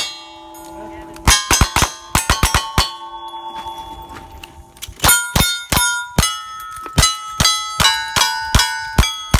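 Two shooters firing single-action revolvers in a rapid string, with steel targets ringing after the hits. After a pause of about two seconds comes another rapid string of rifle shots, again with steel plates ringing after many of the shots.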